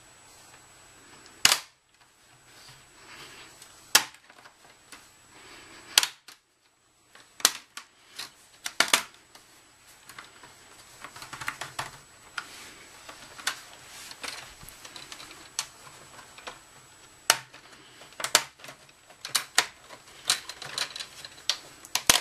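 Laptop screen assembly being taken apart by hand: a series of sharp clicks and snaps, the loudest about one and a half, four, six and nine seconds in and again near the end, with lighter ticking and handling noises between.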